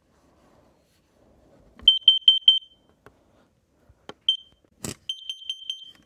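Kidde carbon monoxide alarm sounding its alarm pattern of four short, high-pitched beeps, about two seconds in and again near the end, with a single beep and a sharp click between.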